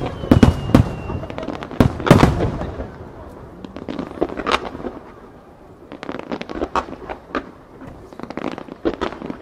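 Starmine fireworks display: several heavy shell bursts go off in the first two seconds or so, with a faint falling whistle under the first one. From about six seconds in come rapid strings of small pops from low sparkling bursts.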